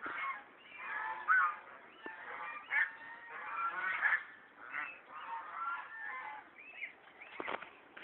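A flock of waterfowl honking and calling, many calls overlapping in a continuous chatter. A short thump sounds near the end.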